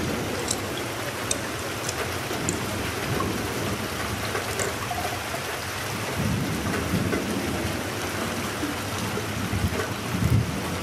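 Steady rain with scattered drips, and low rumbles of thunder about six seconds in and again near the end.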